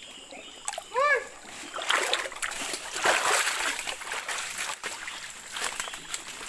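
Splashing and sloshing of people wading through deep floodwater, heaviest in the middle, with one short shout about a second in.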